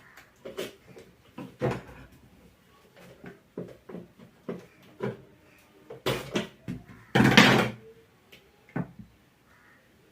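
Hands handling the parts of an opened mixer grinder on a workbench: a string of light knocks and clicks, with a louder clattering scrape about seven seconds in.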